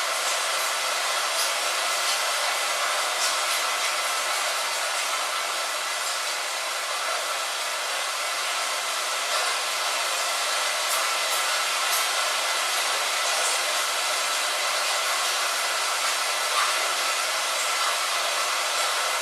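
Rain falling steadily: an even, airy hiss with a few faint scattered drop ticks and almost no low rumble.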